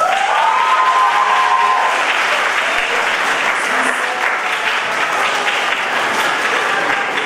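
A hall full of students applauding, starting abruptly and going on steadily, with a voice or two cheering over the first couple of seconds.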